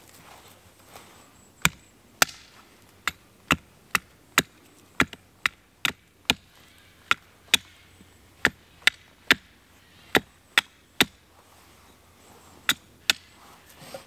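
Small axe chopping into a wooden stick stood on a tree stump: about twenty sharp, irregular chops, with a short pause before the last two.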